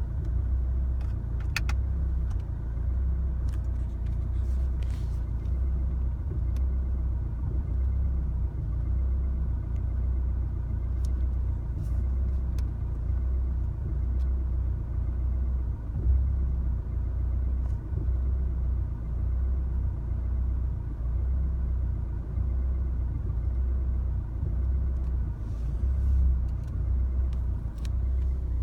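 2016 Chevrolet Colorado's 2.8L four-cylinder turbodiesel idling roughly: a low rumble that swells and fades in a steady pulse, the uneven idle the owner saw come on after a drive.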